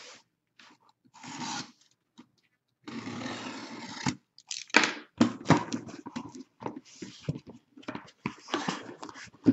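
Cardboard shipping case being handled and opened: a brief scrape, then a steady rasping noise lasting about a second about three seconds in, followed by a run of sharp knocks and rustles of cardboard as the case and the boxes inside are moved.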